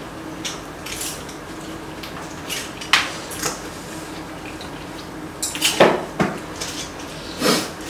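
Chopsticks and spoons clinking and scraping against bowls and a pot during a meal, in scattered short knocks with a few louder clatters.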